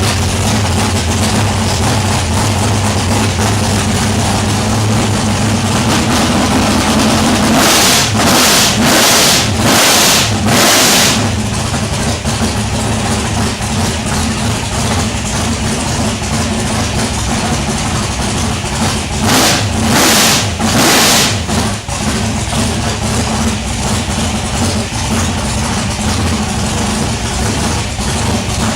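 Freshly repaired 439 cubic-inch big-block Chevrolet V8 with a steel crank, L88 pistons and a .714-lift roller cam, running at a steady idle. It is blipped hard in a run of about five quick revs about eight seconds in, and again in about three revs near twenty seconds in.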